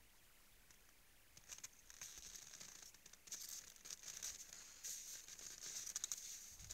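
Faint crunching and crackling of moose hooves stepping in crusted snow. The crackles start about a second and a half in and grow denser and louder toward the end.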